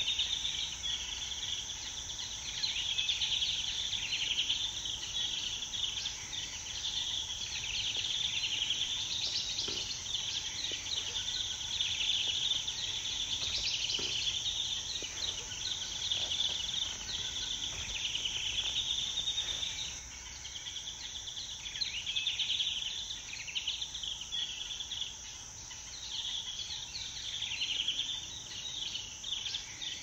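Forest insect chorus: a steady high-pitched drone with a dense run of chirps and trills over it, easing off a little about two-thirds of the way through.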